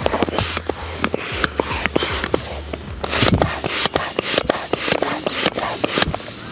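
Hand air pump being worked in quick repeated strokes to inflate an inflatable boat: a rush of air with each stroke, mixed with sharp clicks and rubbing from the pump.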